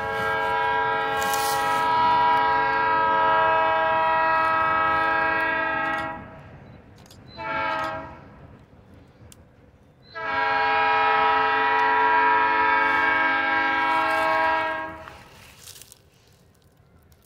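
Diesel locomotive air horn sounding a long blast, a short blast, then another long blast, the closing pattern of the grade-crossing signal, as the train pulls away. Faint rumble of the train after the last blast.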